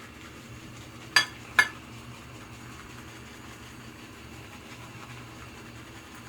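Copper lathering bowl clanking: two sharp, ringing metallic clinks about half a second apart, a little over a second in.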